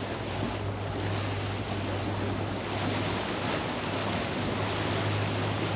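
Boat running under way: a steady low engine hum under the rush of water along the hull, with wind noise on the microphone.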